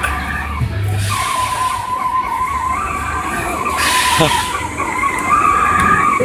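Coin-operated Formula 1 kiddie ride playing its electronic race-car sound effects through its speaker: a steady engine whine with bursts of skidding noise about a second in and again near four seconds, over a low hum.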